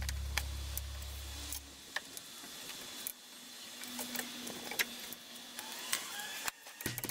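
Scattered light metallic clicks, taps and scrapes of hand tools, a screwdriver and then a chisel, worked against a rusty front steering knuckle. A low background music tone fades out over the first couple of seconds.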